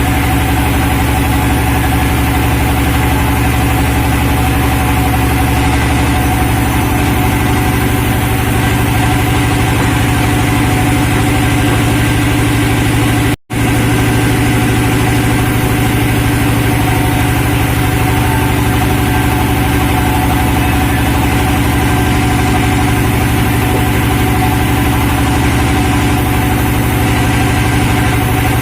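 Sawmill machinery running at a steady pitch, a constant engine-like drone with no change in load. It cuts out for an instant about halfway through.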